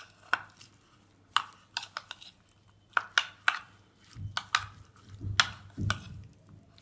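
Spoon stirring chopped vegetables and sandwich spread in a plastic bowl, with irregular sharp clicks of the spoon against the bowl. Several duller knocks come between about four and six seconds in.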